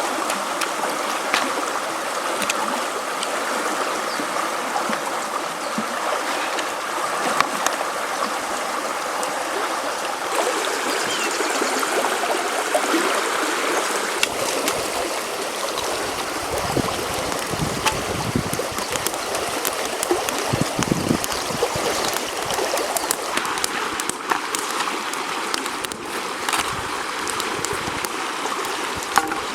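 Steady rushing of a flowing river, with scattered sharp ticks and knocks that come more often in the second half.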